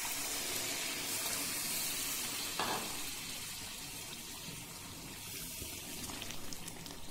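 Hot water poured from a jug into a steel pot of frying chicken korma masala, a steady splashing hiss mixed with sizzling from the hot oil, easing off after about three seconds. A wooden spoon then stirs the watery gravy.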